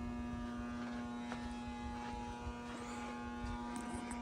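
Steady electrical buzz from a 12 kW metal halide lamp running on its magnetic ballast at high power, with a few faint scattered ticks.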